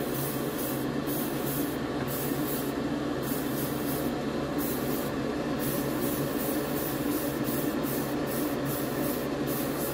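Airbrush spraying paint in short repeated bursts as the trigger is pressed and released, each burst a hiss, over a steady low hum.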